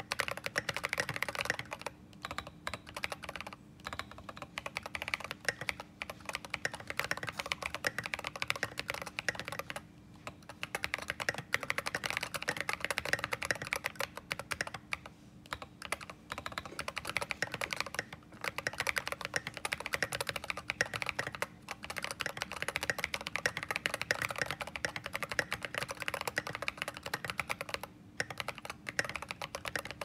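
Canoe mechanical keyboard with stock Holy Panda tactile switches and Signature Plastics SA-profile keycaps, typed on in quick continuous runs of keystrokes, broken by a few brief pauses.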